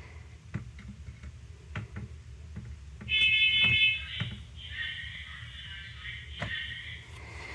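Interconnected household smoke alarms sounding their high-pitched horns. A loud blast of about a second comes about three seconds in, then a fainter alarm sounds for about two and a half seconds, with a few sharp knocks scattered through.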